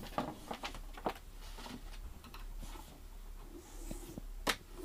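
Handling noise as a motorcycle helmet in a cloth drawstring bag is lifted out of its cardboard box: soft rustling of fabric and cardboard with scattered light knocks, and one sharp click about four and a half seconds in.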